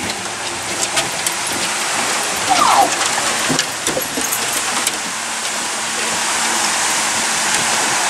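Steady rush of a waterfall pouring into the sea, growing a little louder toward the end, with a few knocks on the boat's deck.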